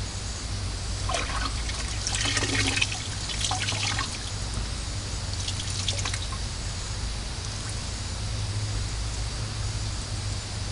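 Water trickling and pouring as hands are rinsed off, with irregular splashes for the first few seconds, then a steady hiss of running water over a constant low hum.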